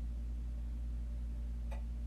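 Steady low rumble of a microphone held close against the body, with one short sharp click near the end.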